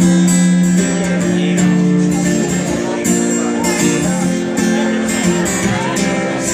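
Guitar strumming chords in a steady rhythm: the instrumental introduction of a song played live.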